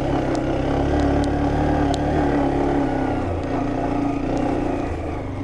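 Honda Hornet motorcycle engine running steadily as the bike is ridden along a muddy dirt track, with a few faint sharp ticks over it.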